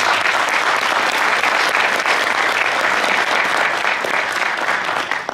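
Audience applauding: dense, steady clapping from a crowd that dies away near the end.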